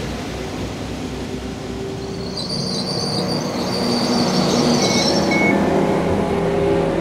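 Transport for Wales Class 197 diesel multiple unit standing at the platform with its engine running. Intermittent high-pitched tones sound for about three seconds, starting roughly two and a half seconds in, with two short beeps near the end of them.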